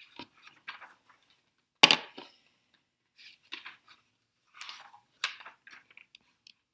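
One loud sharp crack close to the microphone about two seconds in, then several softer short noises and clicks.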